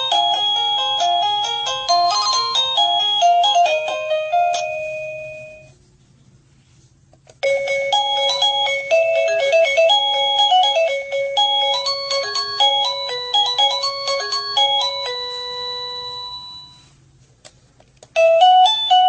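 Wireless doorbell chime playing its built-in electronic melodies one after another, each tune a run of bright beeping notes. One tune fades out about six seconds in, a new one plays from about seven seconds to seventeen, and another starts near the end.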